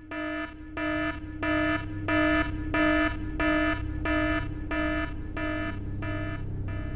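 Electronic alarm beeping over and over, a little under two buzzy beeps a second over a steady low tone, growing louder over the first couple of seconds.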